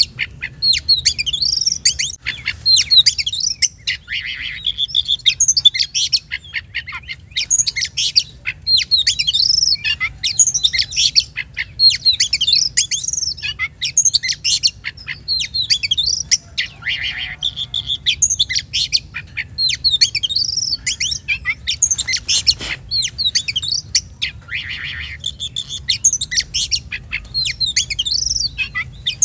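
Oriental magpie-robin (kacer) singing without a break: a rapid, varied stream of whistles, chirps and harsher notes, over a faint low hum.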